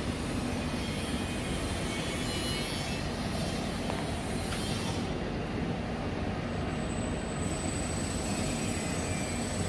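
Stirrer motor of a stir casting furnace running steadily, an even mechanical noise.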